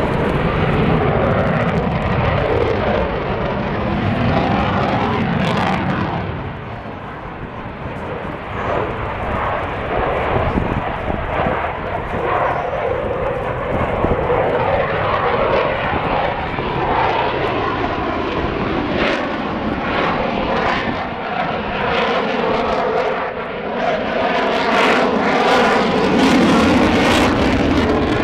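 Fighter jet flying an aerobatic display overhead, its engine roar continuous and swelling and fading as it turns and passes, dipping for a couple of seconds about six seconds in.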